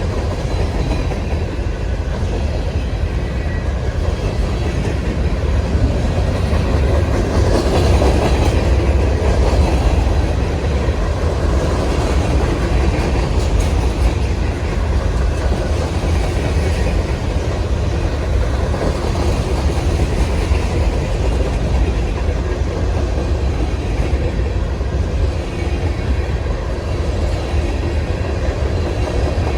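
Freight train cars rolling steadily past on the rails, a continuous loud rumble, a little louder about eight seconds in.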